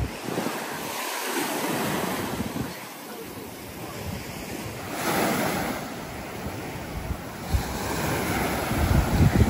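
Surf washing up on a sandy beach, the wash swelling about five seconds in and again near the end, with wind buffeting the microphone in low rumbling gusts.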